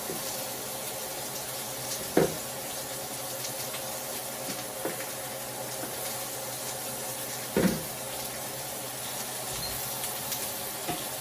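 Chicken sizzling steadily on a greased grilling pan, with two sharp knocks about two seconds in and again past the seven-second mark.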